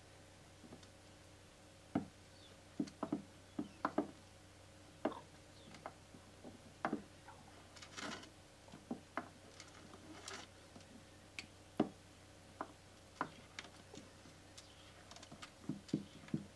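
Big-headed turtle's claws and shell knocking and scraping against the glass aquarium as it clambers about: irregular sharp clicks and knocks, sometimes several in quick succession, over a faint steady hum.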